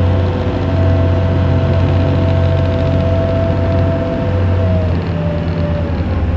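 Engine of a FriendShip passenger boat running steadily under way: a low hum and a steady whine that drops slightly in pitch about five seconds in, over the churn of the boat's wake.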